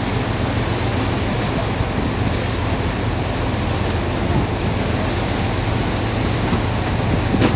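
Small passenger boat under way: a steady rush of wind and water with a low, even engine hum underneath.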